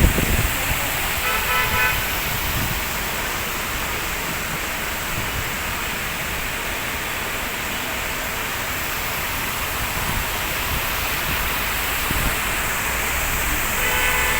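Steady road traffic noise, with a vehicle horn honking briefly about a second in and again near the end. A low thump comes at the very start.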